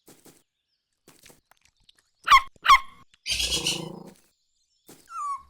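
Cartoon animal sound effects: two short rising squeaky calls in quick succession, then a rougher animal sound lasting under a second, and a short falling squeak near the end.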